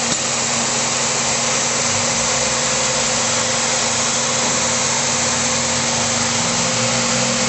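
MX3810B woodworking tenoning machine running steadily: a constant even whir with a steady hum underneath.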